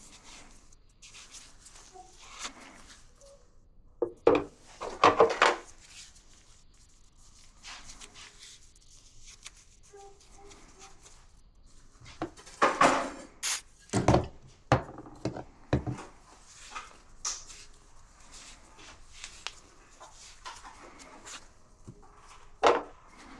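Irregular knocks, clunks and rubbing of parts being handled during a dryer repair. There are two louder clusters of clunks, a few seconds in and again around the middle.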